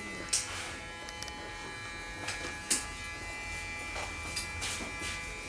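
Electric hair clippers humming steadily, with a few short sharp clicks.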